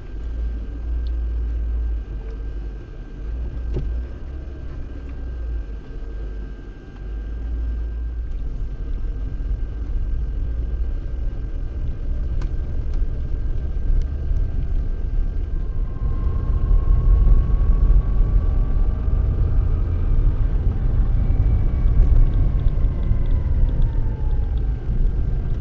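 Lada Niva Bronto driving over a rough dirt track, heard from inside the cabin: a steady low engine and road rumble that grows louder about a third of the way in. In the second half a faint whine rises and then falls in pitch.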